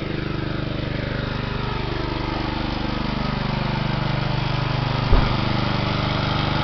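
1988 John Deere 14SE walk-behind mower's small single-cylinder engine running steadily after an electric start, with a single low thump about five seconds in.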